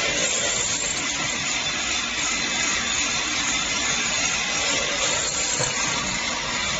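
Rotary syrup filling and ROPP capping machine running, a steady, even mechanical noise with no distinct strokes.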